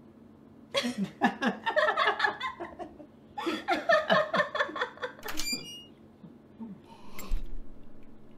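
A woman laughing hard in two long bouts. A short glassy clink rings about five seconds in, and a single knock follows near the end.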